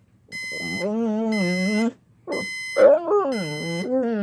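A pitbull whining in two long, wavering cries that rise and fall in pitch, over a high-pitched electronic alarm clock beeping in short bursts. The dog's whining is its reaction to the alarm going off.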